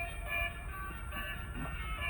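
Music: a melody of short, steady-pitched notes over a low rumble.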